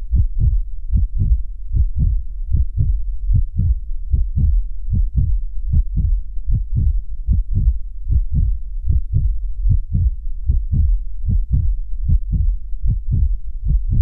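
Heartbeat sound: deep lub-dub thumps in pairs, repeating in a steady, even rhythm.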